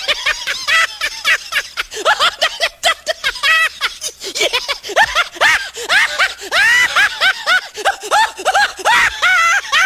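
High-pitched laughter sound effect: a fast run of short, rising-and-falling giggling syllables.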